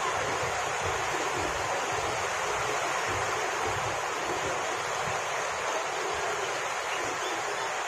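Indian Railways passenger train coaches rolling past along a platform: a steady rushing noise with a low, uneven rumble underneath.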